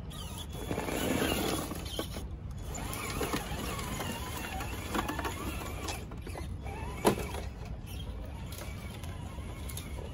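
Electric motor and gear drive of a Traxxas TRX-6 6x6 RC crawler whirring and squealing as it crawls over tree roots, with scattered clicks of the tyres and chassis against wood and stone. A sharp knock about seven seconds in.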